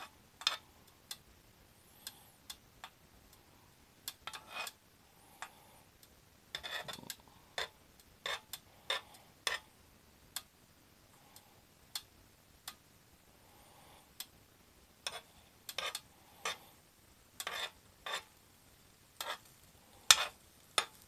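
Metal spoon scraping and tapping on the coated plate of an electric hot plate as frozen shrimp pilaf is stirred, broken up and spread out to thaw and fry in butter: irregular short strokes, some single and some in quick clusters, with a faint sizzle beneath.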